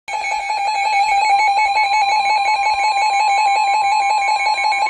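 Emergency alert attention signal: a loud two-tone alarm sounding with a rapid pulsing flutter, announcing a severe thunderstorm warning. The higher of the two tones joins about a second in.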